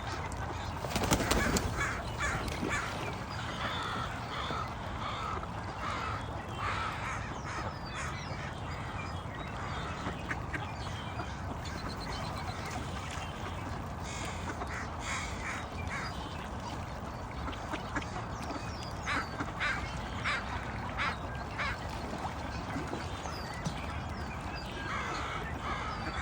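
Ducks quacking, with many short calls scattered throughout over a steady low background rumble. A brief louder burst comes about a second in.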